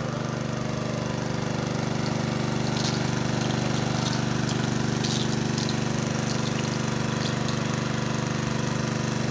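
Small petrol engine of a portable water pump running steadily at constant speed, pumping water out of the pond through a hose.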